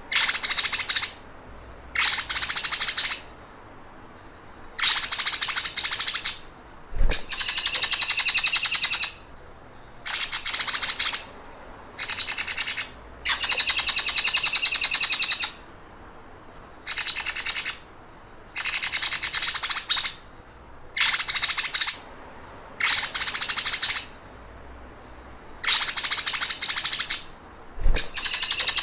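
Bird song with a fast, mechanical, sewing-machine-like rattling trill, in bursts of one to two seconds repeated about a dozen times with short pauses between.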